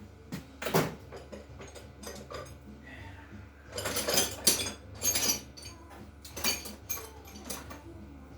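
Steel hand tools clinking and clanking against an engine as a ratchet and socket are fitted to the connecting-rod bolts, in irregular sharp knocks and clicks, busiest about four to five and a half seconds in.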